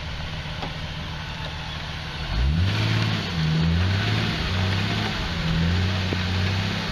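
Off-road vehicle engine idling, then revving up about two seconds in and running at higher revs that rise and fall a little.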